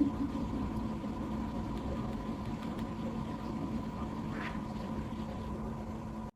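A steady mechanical hum with a faint constant whine, like a small electric motor running; a short knock comes right at the start, and the hum cuts off abruptly just before the end.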